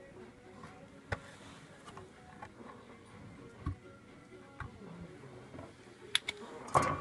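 Scattered light clicks and taps of small metal tools being handled on a workbench, with a louder clatter near the end that rings briefly.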